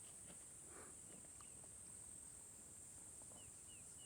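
Faint, steady high-pitched chorus of insects such as crickets, with a few short falling chirps over it near the end.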